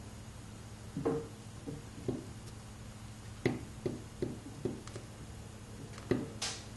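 Steel carving knife pushing cuts into a seal stone: a string of short, irregular scraping clicks, about ten of them, bunched together a few seconds in and again near the end.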